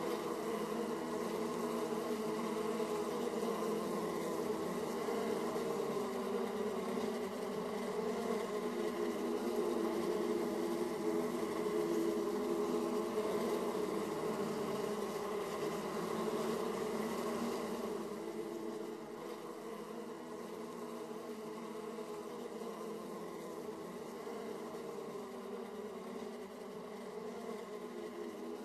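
Many honeybees buzzing at a hive entrance, a steady dense hum with many overlapping pitches, easing slightly about two-thirds of the way through.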